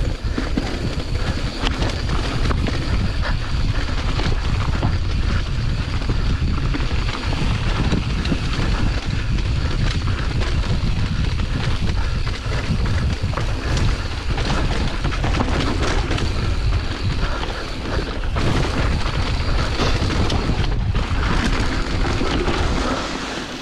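Wind buffeting the microphone over the rumble of a Giant Trance 27.5 mountain bike riding down a dirt trail, with tyres on dirt and roots and constant small rattles and clicks from the bike.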